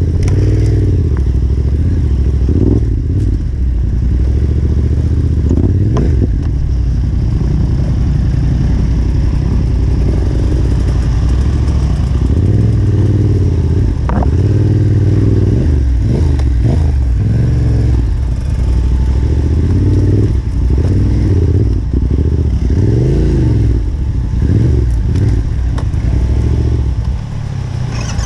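Yamaha Ténéré 700's parallel-twin engine working a slow, rough trail: the revs rise and fall over and over with short throttle blips. Knocks and clatter from the bike over rough ground mix in.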